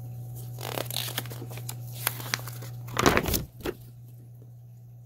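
Paper rustling and sliding as a folded motherboard manual is handled and opened against its cardboard box, in two spells: a lighter one about a second in and a louder one about three seconds in. A steady low hum runs underneath.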